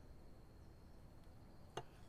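Near silence, then a single sharp click near the end: a kitchen knife set down on a plastic cutting board.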